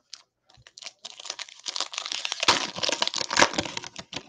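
Wrapper of a 2019-20 NBA Hoops Premium basketball card pack crinkling and tearing as it is ripped open by hand. A few light clicks come first, then about three seconds of dense crinkling, loudest in the middle.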